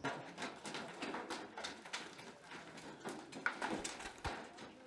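Irregular knocks and clatter from hand work on shelter construction, a few sharp strikes a second.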